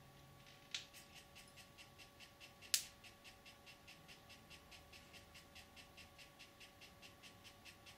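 Handheld 3D pen feeding ABS filament, its feed mechanism ticking steadily about five times a second. A sharp click starts the ticking just under a second in, and a louder click comes a little under three seconds in.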